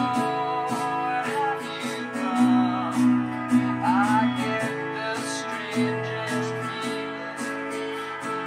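Acoustic guitar strummed in a steady rhythm, sounding held chords that change every couple of seconds.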